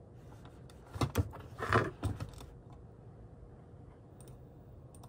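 A few short knocks and a brief rustle from handling a padded laptop sleeve against a desk, clustered about a second in, then a quiet room with a faint steady hum.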